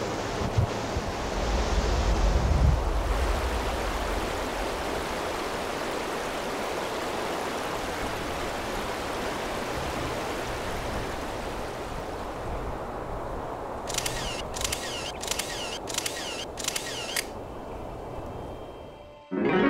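Shallow mountain river flowing over gravel, a steady rushing of water, with a low rumble in the first three seconds. About fourteen seconds in comes a quick run of sharp clicks, roughly two a second, for about three seconds.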